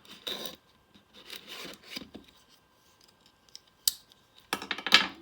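A trading-card pack being opened and handled: the wrapper rustles and crinkles in short bursts, with a sharp click about four seconds in and a louder crinkle near the end.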